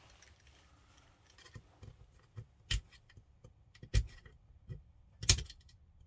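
Small screwdriver and metal pin clicking and scraping against an airsoft rifle's lower receiver while a spring is worked over the end of the fire-control board's retaining pin. A few soft clicks come first, then three sharper knocks about a second apart.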